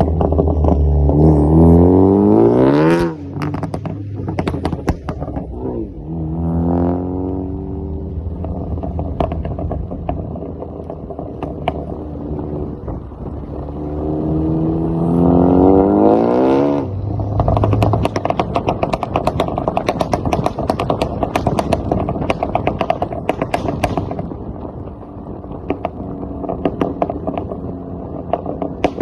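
Ford Focus ST engine revved up three times, its pitch climbing and then dropping away. Each time the revs fall, the exhaust gives a rapid string of crackles and pops on the overrun, the result of a pops-and-crackles tune.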